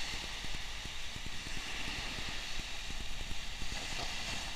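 Wind rumbling and buffeting on the microphone over a steady hiss of surf on the shore.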